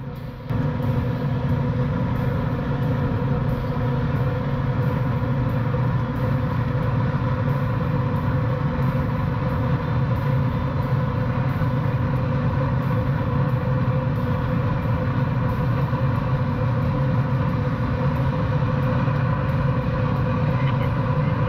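Pellet grill's combustion fan running steadily as the fire pot lights at start-up, heard from inside the cooking chamber: an even hum with a low rumble that comes on suddenly about half a second in.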